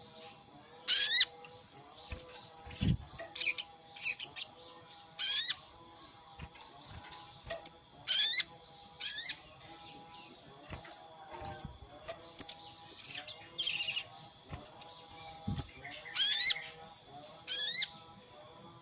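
Sogon (sogok ontong) lure calls: sharp, upward-sweeping call notes mixed with quick high chips, repeated at irregular intervals, over a steady thin high whine.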